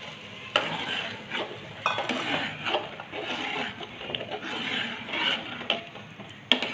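A steel ladle stirring liquid payasam in a metal pot, scraping and clinking against the pot, with sharper knocks about half a second in, near two seconds and near the end.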